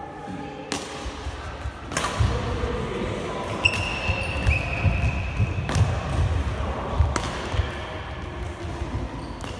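Badminton rally echoing in a sports hall: sharp racket hits on the shuttlecock, one every second or two, with thudding footsteps of the players on the hall floor in between. About four seconds in comes a squeak of a sports shoe on the floor, lasting about two seconds.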